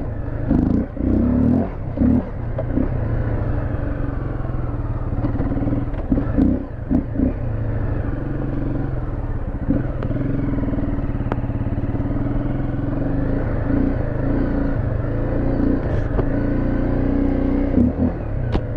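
Fuel-injected dirt bike's engine running at low trail speed, the throttle opening and closing so the pitch rises and falls. Short knocks and rattles come through, most of them in the first few seconds.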